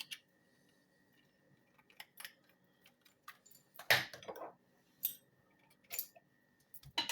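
A teaspoon clinking and scraping against a jar and pan while garlic puree is spooned in: scattered light clinks and knocks, the loudest about four seconds in.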